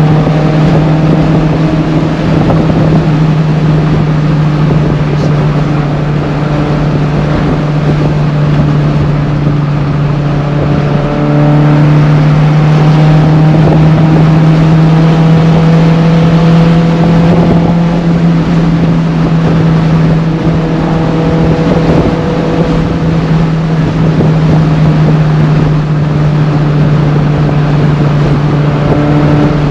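A Mk1 VW Golf's 1.8-litre 16-valve four-cylinder engine on twin Weber carburettors, heard inside the cabin, running as a steady drone at motorway cruising speed, with road and wind noise underneath. About eleven seconds in it rises slightly in pitch and gets a little louder, then holds.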